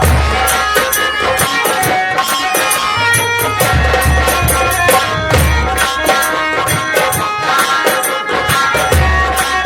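Nautanki folk-theatre music: drums beating a fast, dense rhythm with deep booming low strokes, under held melody notes.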